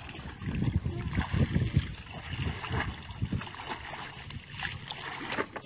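Shallow pond water sloshing and splashing irregularly as people wade through it and grope and pull at water plants with their hands.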